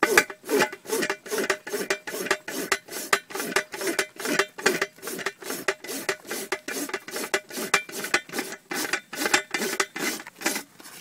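Hoof rasp filing a foundered pony's hoof wall in quick, even strokes, about three a second, stopping suddenly at the very end.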